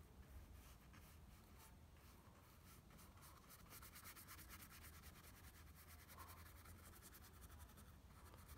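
Very faint, repeated swishing of a paintbrush stroking a wet wash across paper, over a steady low room hum.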